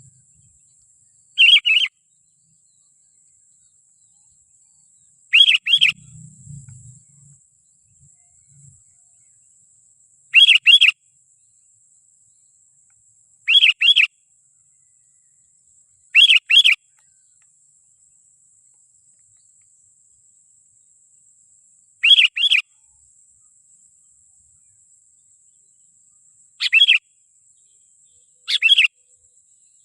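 Sooty-headed bulbul (kutilang) call used as a trapping lure: a short, quick double-note chirp, repeated eight times at irregular gaps of two to six seconds.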